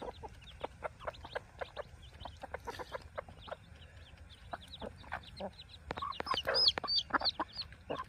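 Newly hatched chicks peeping all through, with a mother hen clucking; the peeping grows louder and busier about six seconds in.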